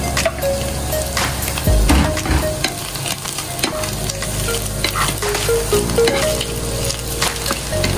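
Diced ham, mushrooms and onion sizzling as they fry in a nonstick pan, stirred with a wooden spatula that scrapes and knocks against the pan again and again.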